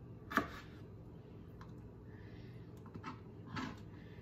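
A few sharp clicks of a chef's knife on a plastic cutting board while dill pickle slices are moved about. The loudest comes about half a second in, with fainter ones later.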